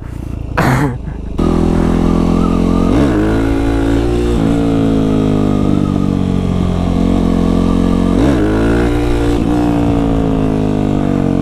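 Yamaha WR450F single-cylinder dirt-bike engine running on the throttle, its revs slowly sagging, with two brief dips in pitch about three and eight seconds in.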